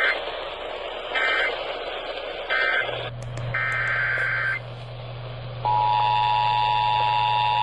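Emergency Alert System tones over radio hiss: three short buzzy digital data bursts (the end-of-message code closing the previous warning), then a longer data burst (the header of the next alert), then the steady two-note EAS attention signal, which starts about five and a half seconds in.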